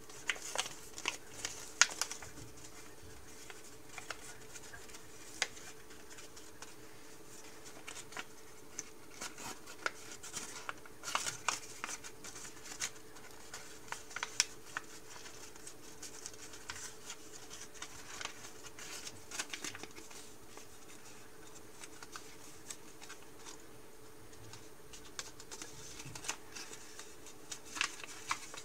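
Paper being folded and creased by hand into an origami model. It gives irregular rustles, crinkles and sharp creasing snaps, busiest at the start, around ten to fifteen seconds in, and near the end. A faint steady hum runs underneath.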